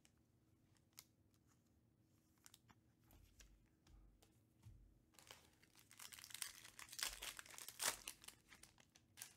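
A foil Panini Prizm UFC hobby pack crinkling and being torn open by hand. The dense crackle builds about halfway through and is loudest near the end. Before it there are a few light taps and rustles as the pack is handled.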